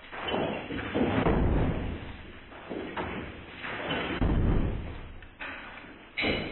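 Hammer striking a tiled shower wall during demolition: about six heavy thuds, unevenly spaced, each with a short rumbling tail.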